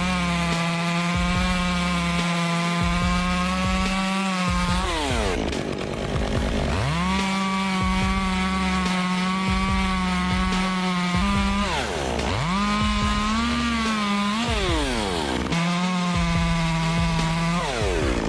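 Two-stroke chainsaw running at full throttle while cutting wood. Four times its pitch drops sharply as the throttle eases off, then climbs back to full revs.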